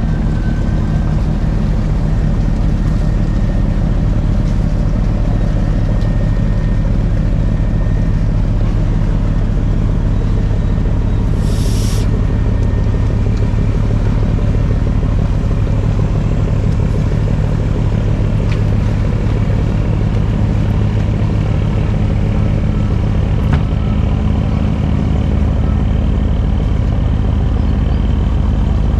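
Small boat's engine running steadily, a constant low drone, with a short hiss about twelve seconds in.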